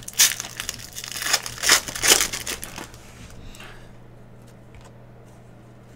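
A foil wrapper of a Panini Prizm basketball hobby pack being torn open and crinkled in the hands: a run of loud crinkles over the first three seconds, then only a few faint ticks as the cards are handled.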